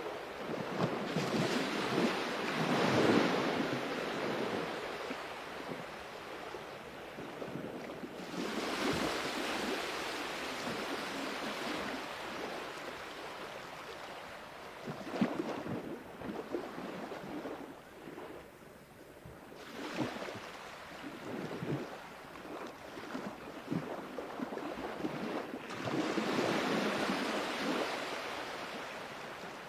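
Sea waves breaking and washing in, a hissing surge of water that swells and fades about every five or six seconds.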